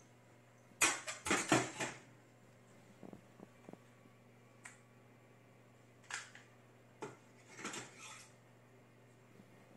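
Hands working on an oven thermostat and its plastic control housing while its screws go back in: a burst of hard clattering and rattling about a second in, then scattered light clicks and short rattles.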